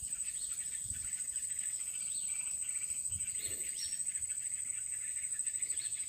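Insects trilling steadily in one high, unbroken band, with faint short bird chirps over it.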